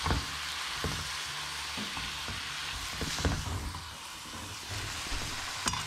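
Egg noodles and vegetables sizzling in a frying pan as they are stir-fried in soy sauce, with a steady hiss throughout. Spatula and wooden spoon knock against the pan several times as the noodles are tossed.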